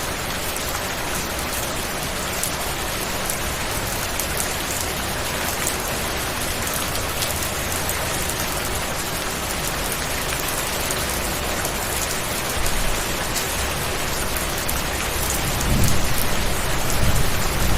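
Steady, dense rain falling, with individual drops pattering through the hiss. A low rumble swells briefly about two-thirds of the way in and again, louder, near the end.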